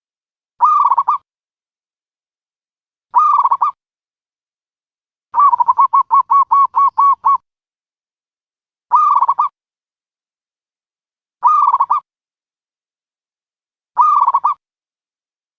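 Dove call played as a trapping lure: a short pulsed call repeated about every two and a half seconds, six times in all, with a quick run of about ten notes in the middle.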